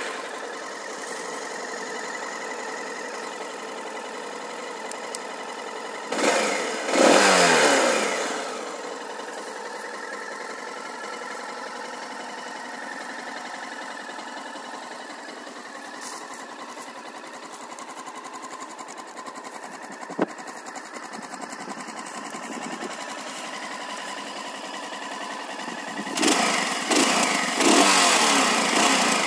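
Suzuki XF650 Freewind's single-cylinder four-stroke engine idling. It is revved once about six seconds in, falling back to idle, and revved several more times near the end.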